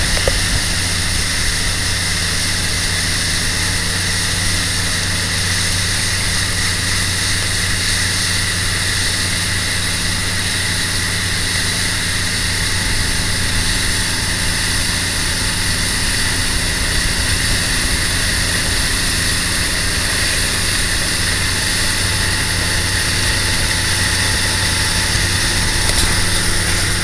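Bayliner motorboat's engine running steadily at cruising speed, heard from on board, over a steady hiss of rushing water.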